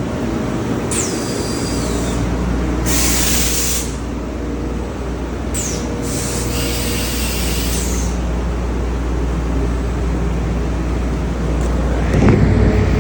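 Workshop machinery running with a steady low hum, two falling high whines and bursts of hissing air.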